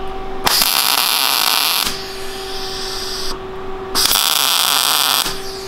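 MIG welder arc crackling and sizzling on steel in two short tack welds of about a second and a half each, with a steady hum between them.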